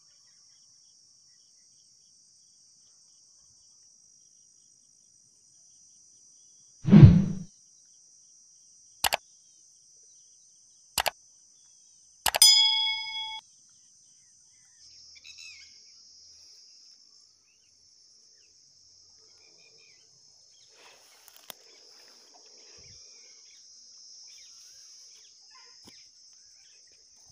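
Insects buzzing steadily and high-pitched. About seven seconds in comes a loud, low thump, followed by two sharp clicks and then a short ringing ding.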